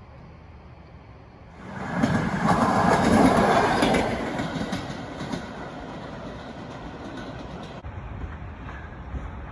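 A loud rushing rumble that swells in about two seconds in, peaks, then eases to a steady rumble; its high hiss cuts off abruptly near the end.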